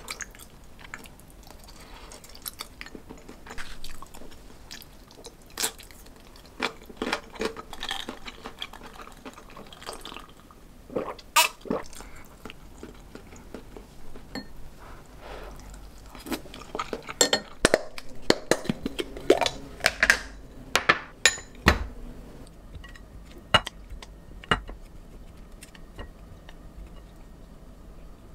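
Chopsticks clinking and scraping against ceramic bowls and dishes, with some chewing, as food is eaten. The clinks come irregularly and are busiest a little past the middle.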